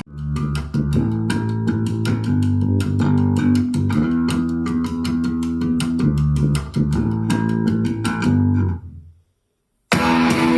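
Skullcandy Terrain XL Bluetooth speaker playing a bass-heavy instrumental track with a bass guitar line and steady ticking percussion, as a sound test. The track fades out a little after nine seconds, there is a brief silence, and the next track starts.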